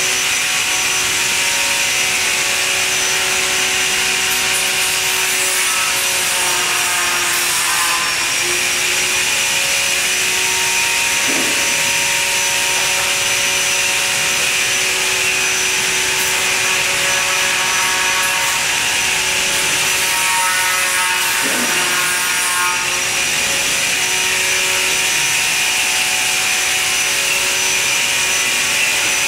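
Steady whirring machine noise with several humming tones that shift slightly in pitch, and a brief falling whine twice, from warehouse machinery and electric automated guided vehicles moving pallets.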